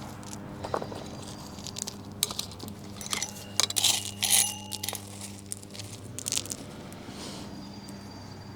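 Gravel and lava rock crunching and clinking as stones are shifted, with a cluster of sharp clicks and scrapes through the middle.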